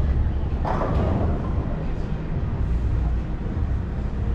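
Steady low rumble of background room noise, with a brief faint sound about two-thirds of a second in.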